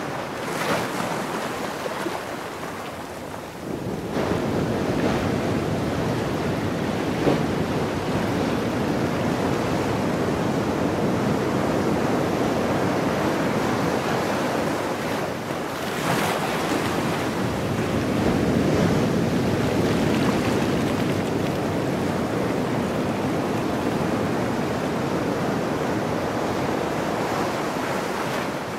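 Ocean surf breaking and washing up over sand and around rocks, a continuous rush that swells as each wave comes in, most strongly about four seconds in and again around sixteen seconds.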